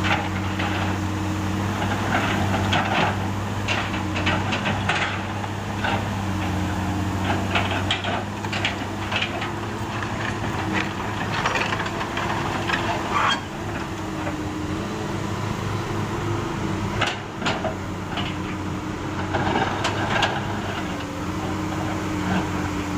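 Komatsu PC200 excavator's diesel engine running at a steady speed, with scattered knocks and clattering from the bucket working broken asphalt.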